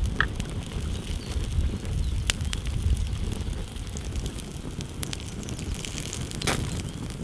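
Wind buffeting the microphone in a heavy, uneven rumble, with scattered sharp clicks and crackles over it, a small cluster of them near the end.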